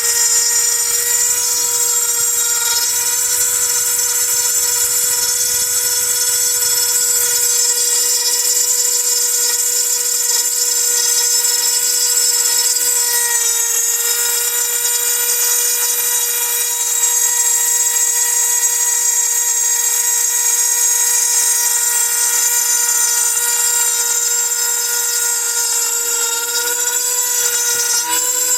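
Small desktop CNC mill's high-speed spindle running with a steady high whine while its cutter mills PA6 aluminium alloy. A second, lower steady tone runs alongside from a second or so in until about halfway and returns briefly near the end, and the whine dips slightly in pitch at those points.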